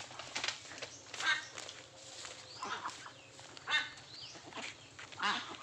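Chickens clucking in the yard: several short calls, one about every second.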